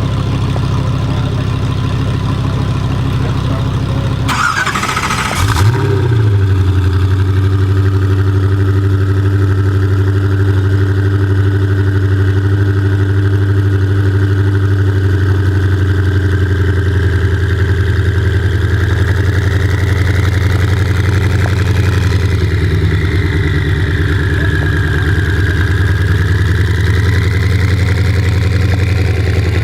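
Car engine running close by at a steady idle. About five seconds in, a brief burst of noise with a quick rise and fall in pitch, after which the idle settles a little louder.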